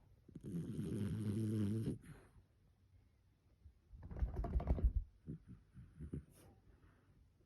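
11-year-old English Cocker Spaniel snoring in its sleep: one long, even-pitched snore of about a second and a half, then a rougher, rattling snore about four seconds in, followed by a few faint clicks.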